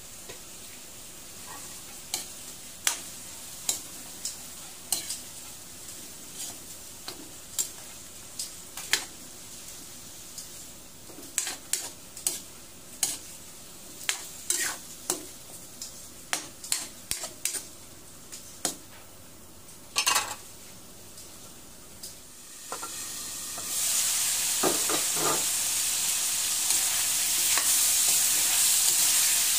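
Metal ladle stirring chicken pieces in a metal wok, clinking and scraping against the pan at irregular intervals while the meat sizzles softly. About three-quarters of the way through, a loud steady sizzle takes over as the chicken fries.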